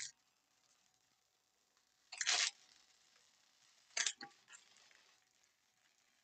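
Thin plastic wrap around a stack of baseball cards being torn open and peeled off, with a short crinkly rustle about two seconds in and a few sharp crackles around four seconds.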